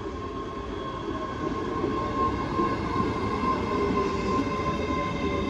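ScotRail Class 385 electric multiple unit pulling into a station platform: a continuous rumble of wheels on rail with a steady high tone over it, getting louder over the first couple of seconds as the train draws alongside.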